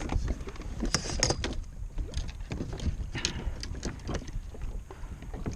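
Wind rumbling on the microphone and water sloshing around a kayak hull, with scattered light knocks and clacks from the kayak and its gear as it draws up beside another kayak.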